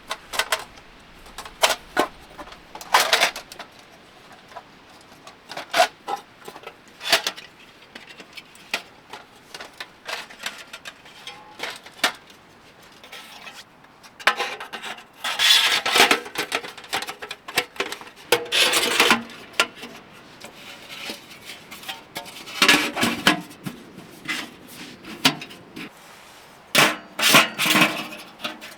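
Camp gear and wood being handled: irregular knocks, clinks and rubbing, with longer bouts of rustling and scraping about halfway through and again near the end.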